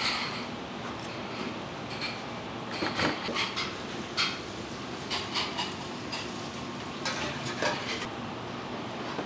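Scattered clinks and scrapes of metal utensils against dishes and containers over steady kitchen background noise, as an ice cream scoop and a spoon are worked.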